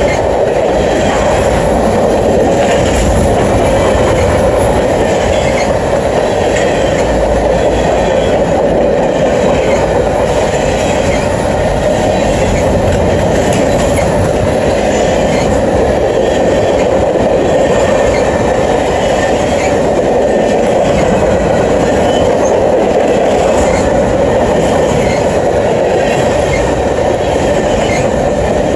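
Freight train of covered hopper and tank cars rolling past close by: a steady, loud rumble of steel wheels on rail, with wheels clicking over the rail joints.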